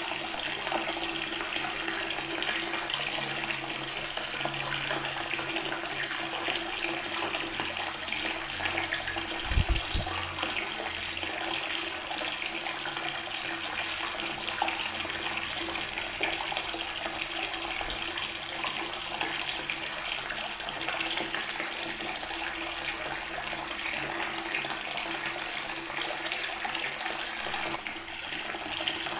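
Water tap running steadily, the stream splashing onto natural stone. About a third of the way in there is one brief low thump.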